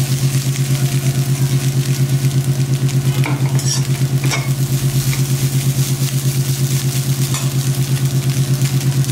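Slotted steel spatula stirring fried rice in a white-coated frying pan, with light sizzling and a few scraping clicks. Underneath runs a loud, steady low mechanical hum with a fast throb, like a motor running.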